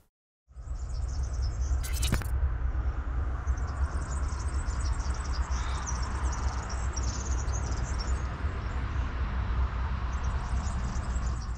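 Steady outdoor rumble with birds chirping faintly over it, and a single click about two seconds in.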